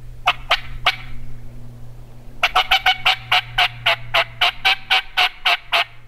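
Turkey calling: three short clucks, then after a pause a fast, even run of about fifteen loud, sharp yelps, about four to five a second. This is the hen-turkey yelping used to draw in a gobbler.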